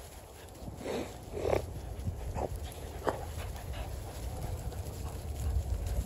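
American Bully puppies playing, giving a few short yips, four in the first three seconds, over a steady low rumble.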